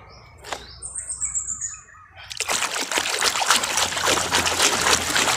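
Hand swishing a toy truck through a plastic tub of foamy, muddy wash water, with dense, rapid splashing and sloshing from about two seconds in.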